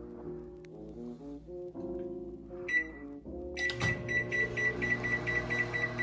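Soft lo-fi background music, with a kitchen appliance's electronic timer beeping over it. The timer gives one short beep a little under three seconds in, then a rapid, steady run of beeps from just past halfway: the signal that the food is cooked.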